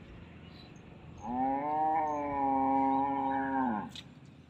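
A cow mooing: one long, steady call of about two and a half seconds that drops in pitch as it ends.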